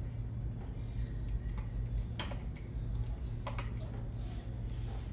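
Irregular clicks and taps of a computer keyboard as the scan images are stepped through, over a steady low hum.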